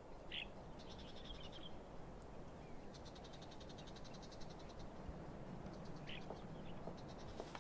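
Faint evening nature ambience: scattered short chirps and rapid, evenly pulsed trills of calling frogs and birds, the longest trill running about two seconds from about three seconds in, over a soft background hush.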